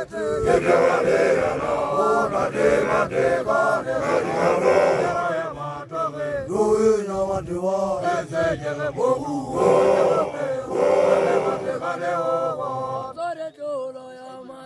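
Group of young Basotho male initiates chanting a song together in unison, many voices strong and full. About thirteen seconds in the chanting drops away to a few quieter held voices.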